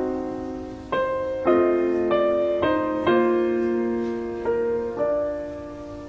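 Slow solo piano music: notes and chords struck every half second to a second, each ringing on and fading.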